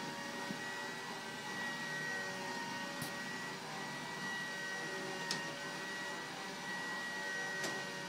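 LGB G-scale model train running on its track: a steady electric motor and gear whine with a hum beneath it, and three sharp clicks a little over two seconds apart.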